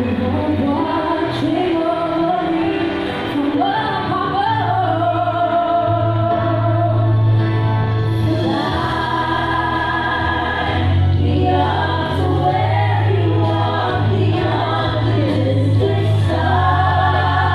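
Live vocal group performance: a female lead and several young voices taking turns and joining in harmony over instrumental accompaniment.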